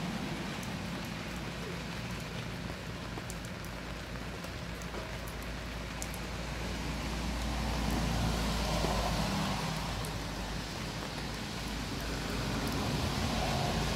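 Steady heavy rain falling on a camping tarp and the grass around it, with scattered drop clicks. It grows a little louder about two-thirds of the way through and again near the end.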